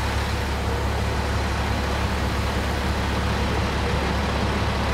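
Heavy emergency truck's engine running with a steady low rumble as it rolls slowly up close, over a steady hiss of rain and tyres on the wet road.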